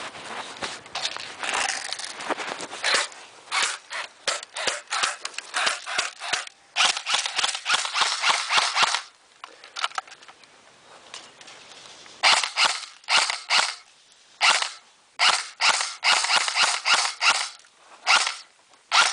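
Airsoft guns firing: strings of sharp, light shots, some spaced apart and some in fast automatic bursts, with a pause of a few seconds near the middle.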